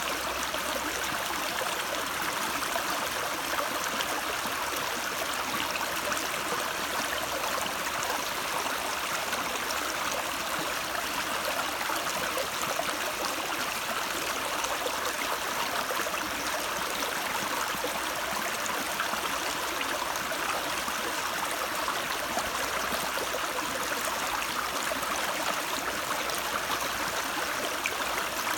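Stream water running steadily, an even, unbroken rush.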